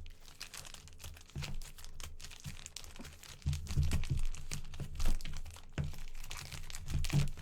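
Football trading cards and their foil pack wrappers being handled: irregular crinkling and rustling with quick flicks of cards and soft knocks.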